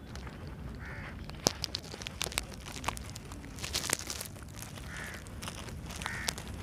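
Crows cawing a few times, with sharp crackles and snaps in between, the loudest about one and a half seconds in, over a steady low rumble.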